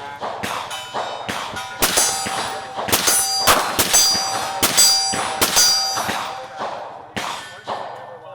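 A string of rapid pistol shots, each followed by the ringing clang of a steel target plate being hit.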